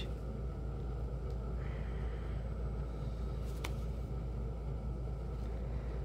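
Room tone: a steady low rumble, with one sharp click about three and a half seconds in.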